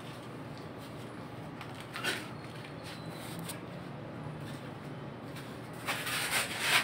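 Boxing gloves hitting a hanging heavy bag: one hit about two seconds in, then a quick run of hits near the end, over a steady background hiss.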